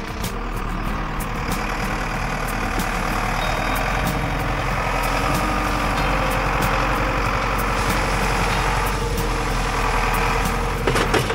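Farm tractor's diesel engine running steadily while its front loader raises and tips a bucket of wood chips. A cluster of rattling clicks near the end as the chips pour out.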